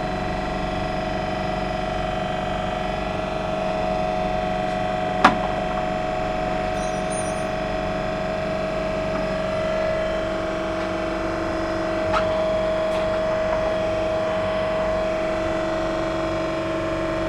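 Steady machine hum with a constant whine, as from a motor or fan running. A sharp click comes about five seconds in, and a fainter one near twelve seconds.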